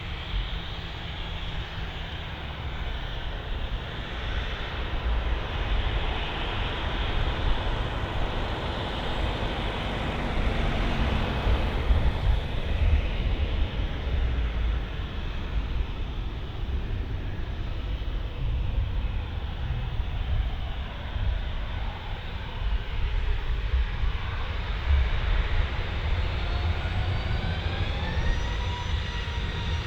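Jet airliner engines running, the noise swelling to a peak about twelve seconds in and easing off. Near the end a rising whine climbs steadily, as an engine spools up.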